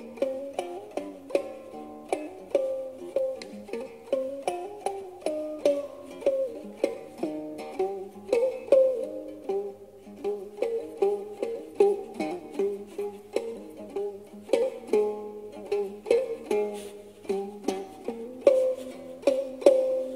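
Khse diev, the Cambodian single-string stick zither with a gourd resonator, plucked in a steady melody of short, sharply struck notes, about two a second, each ringing briefly.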